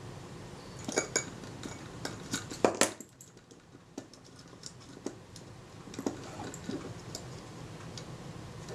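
Irregular small metallic clicks and taps from the parts of a Kodak Retina IIIc camera's film-advance rack and gear being handled and worked by hand. The clicks are thickest and loudest in the first three seconds, then sparser and fainter.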